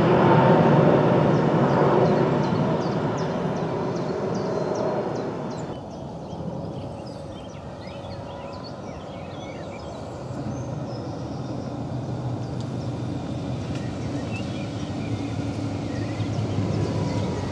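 A low-floor electric tram running in on the track, its wheels and running gear rumbling loudest in the first few seconds and then fading. After a sudden change the sound is much quieter, and from about ten seconds in there is a low steady hum.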